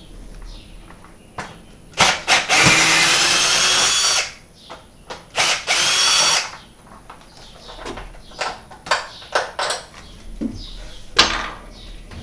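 Power drill running twice, about a second and a half then about a second, backing out the Phillips screws that hold up an old fluorescent light fixture, with a faint rising whine in each run. Short knocks and clicks come between and after the runs.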